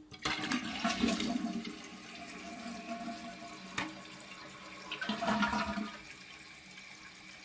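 1995 Mansfield Alto toilet flushing. A click starts it, then water rushes loudly from the tank for about two seconds. A sharp knock follows about four seconds in, and the water settles into a quieter steady run as the tank refills.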